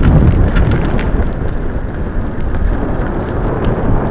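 Wind buffeting the microphone of a handlebar-mounted camera on a moving bicycle: a steady, deep rush of noise.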